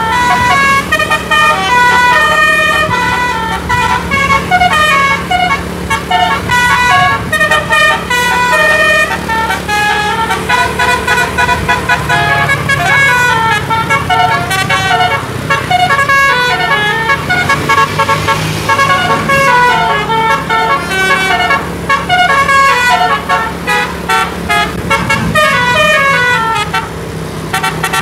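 A bus's telolet musical air horn, driven by a DAV horn module, playing rapid runs of short notes that step up and down the scale without a break, over a steady low drone.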